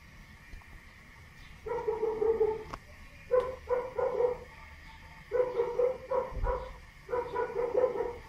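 Plush toy dog barking in four short runs of yaps, each about a second long, starting a little under two seconds in.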